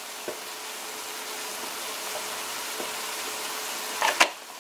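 Sliced onions, tomatoes and green chillies sizzling steadily in butter in a wok, with a few faint ticks and one short, louder noise about four seconds in.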